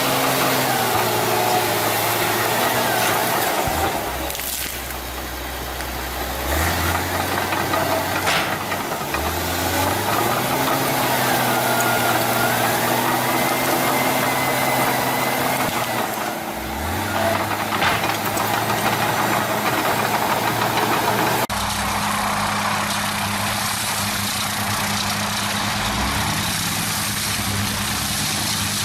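Engine of a heavy machine running, its pitch stepping up and down several times as it revs. About two-thirds of the way through the sound changes abruptly to a steadier engine.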